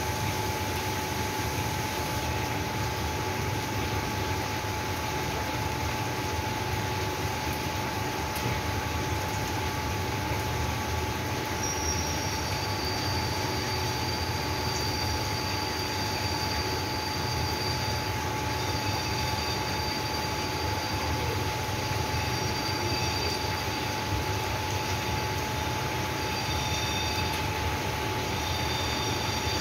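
Heavy rain falling on a flooded street, a steady even hiss. A steady tone runs through it, and from about twelve seconds in, thin high whistling tones come and go.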